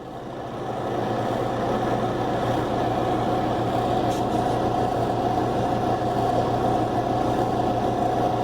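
Motor of a Whirlpool direct-drive washing machine running steadily, a hum with a higher whine over it. The coupler between motor and transmission is broken, so the motor turns without moving the agitator or spin basket.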